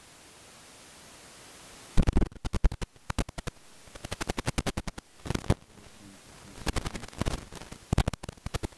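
Runs of sharp rapid clicks, several a second, starting about two seconds in and coming in bursts over a faint steady hiss.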